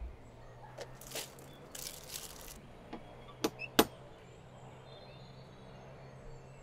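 Two sharp knocks on a front door in quick succession, about three and a half seconds in, after some soft rustling.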